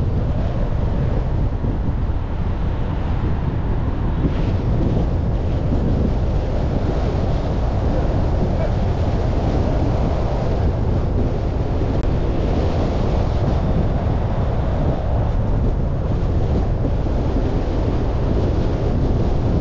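Steady wind rush and road rumble from a car driving slowly through town streets, with wind buffeting the microphone and the noise heaviest in the low end.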